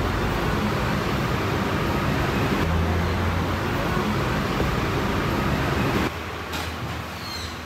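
Steady roadside traffic noise with a low engine hum from vehicles on the street. It drops away for about a second and a half near the end, then returns.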